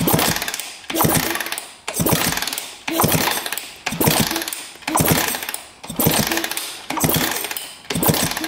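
Honda CR125 two-stroke single-cylinder engine turned over by its kickstarter about once a second, nine strokes, each starting sharply and spinning down, with the spark plug out for a spark test.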